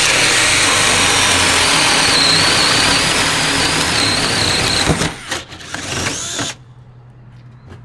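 Two cordless drills running at full speed, boring 3/4-inch spade bits through a wooden board, with a high whine over the noise of the cutting. The DeWalt breaks through and stops about five seconds in, and the Bosch 12V drill keeps boring for another second or so before it stops too.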